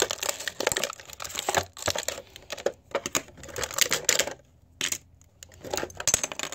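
Small plastic toy parts and packaging being handled, rustling and clicking in uneven bursts with short pauses.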